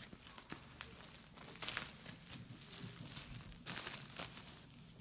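Clear plastic shrink-wrap crinkling and rustling in irregular bursts as it is pulled off a boxed CD set, loudest about two seconds in and again a little before the end.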